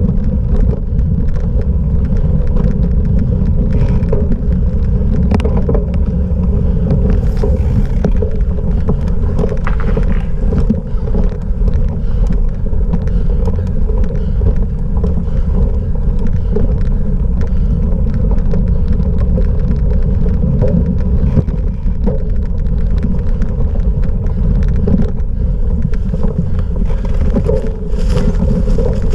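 Steady rumble of wind buffeting the microphone and tyre and frame noise from a cyclocross bike riding fast over rough off-road ground, with scattered knocks and rattles from bumps.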